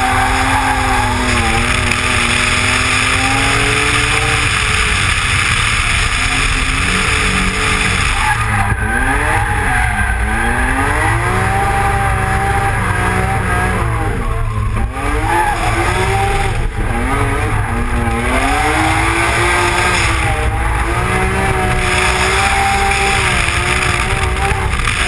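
Opel Manta's BMW M3 engine revving hard and easing off again and again through the corners of a drift lap, with tyres squealing as the car slides, heard from a camera mounted outside on the car's body.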